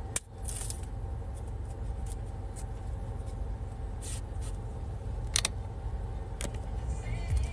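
Steady low rumble of a car heard from inside the cabin, with a few short sharp clicks and taps scattered through.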